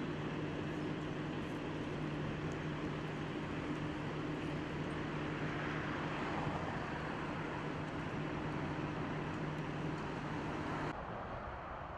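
Strong wind rushing, with a steady low hum underneath, swelling slightly midway. About eleven seconds in, the sound drops abruptly and turns duller.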